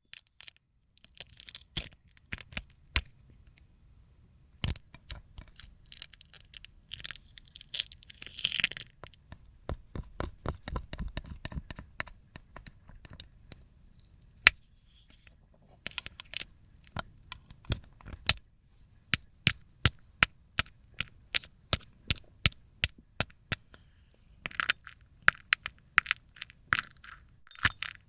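A film of dried slime being peeled off a plate: a run of sharp cracks and crackles, with two longer stretches of continuous crackling tearing, one between about 6 and 9 seconds in and one near the end.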